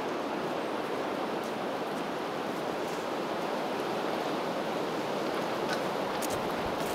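Running water from a stream making a steady rushing noise, with a few faint ticks near the end.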